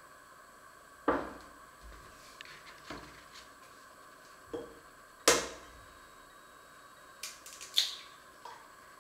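Kitchen clatter: dishes and utensils knocked and set down on a counter, a string of sharp knocks and clinks with the loudest about five seconds in and a quick cluster near the end, over a faint steady hiss.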